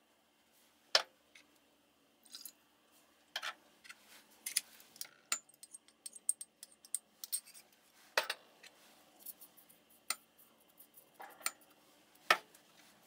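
Scattered clinks and scrapes of a spoon against a small ceramic dish and a glass Mason jar as dressing ingredients are spooned in, with a few louder knocks spread through.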